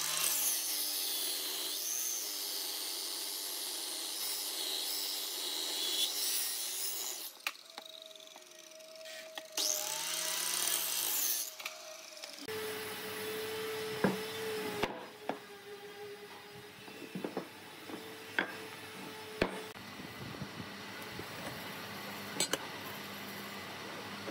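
A power tool working wood in two runs, its whine dipping and rising under load. About halfway through the sound changes abruptly to a low steady hum with a handful of sharp wooden knocks.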